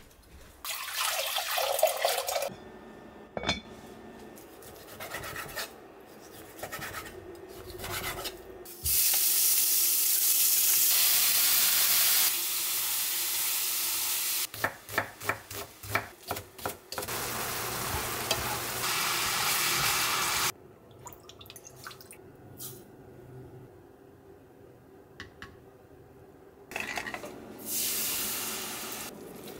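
Meat sizzling in a hot frying pan while it is stirred with chopsticks, which clack quickly against the pan for a few seconds. Shorter hisses come and go, and a hiss rises and fades near the end as sauce goes into the pan.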